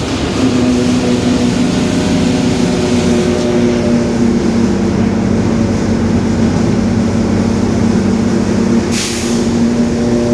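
Marcopolo Torino S city bus's differential whining steadily at highway speed, with engine and road noise beneath it. A short hiss of air comes about nine seconds in.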